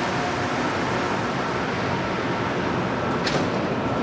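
Rubber-tyred Montreal Metro train standing at the platform, with a steady hum and rush of its onboard equipment and the station's ventilation. About three seconds in comes a short, high hiss.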